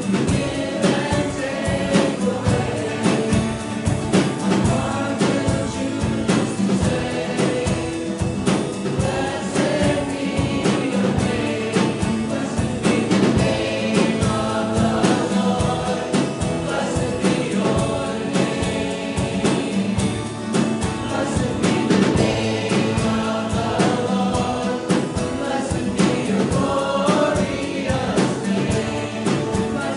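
Church congregation and worship band singing a praise song, many voices over instrumental accompaniment with a steady beat.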